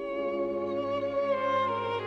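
Instrumental music with bowed strings playing long, held notes with vibrato; the melody moves to new notes about halfway through.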